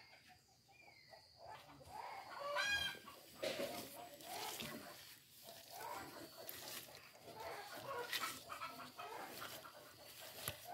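Chickens clucking, loudest in one pulsing call about two and a half seconds in, over close rustling and scraping of soil and green onion leaves being handled.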